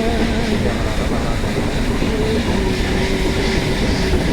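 Nilgiri Mountain Railway toy train running on the rails: a steady rumble and rattle of the carriages, with a faint held tone now and then.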